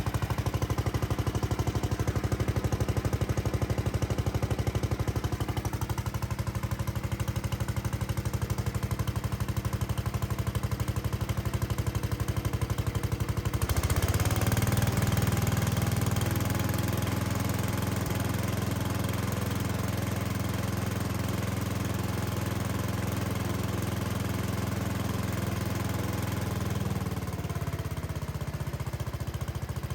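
Sears garden tractor engine running with rapid, steady pulsing, driving a Sears 4000-watt generator attachment that is producing power on a test run. About halfway through the sound shifts and gets heavier, then eases back near the end.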